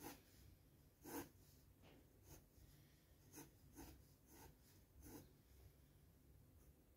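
HB graphite pencil sketching on sketchbook paper: about eight faint, short scratching strokes, the loudest about a second in, over a low steady hum.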